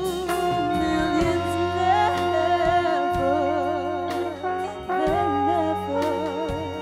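Live band music led by a trombone melody with a wavering vibrato, over a steady electric bass line and rhythm section.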